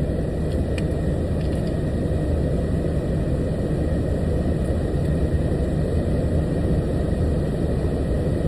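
Steady low rumble of an idling semi-truck engine, heard from inside the cab.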